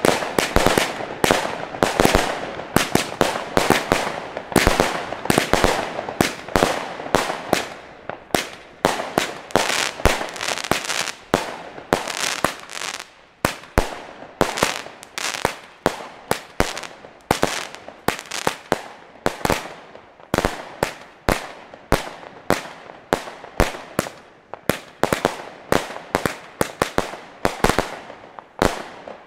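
Xplode 'Leider Geil' XXL firework battery firing a long string of shots and aerial bursts. The bangs come fast and overlapping for the first dozen seconds, then spread out to about two a second, and the firing stops right at the end.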